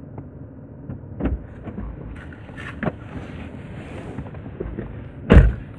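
Steady low rumble inside a stopped car with its engine running, with a few light knocks and clicks and one loud thump about five seconds in.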